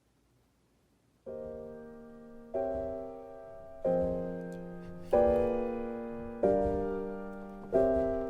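Near silence, then background piano music begins a little over a second in: slow chords struck about once every second and a bit, each ringing and fading before the next.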